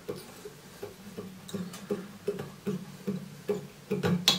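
Fly-tying thread being wrapped around a hook with a bobbin. The taut thread twangs with a short pitched pluck on each turn, about two and a half a second, and there is a sharper click near the end.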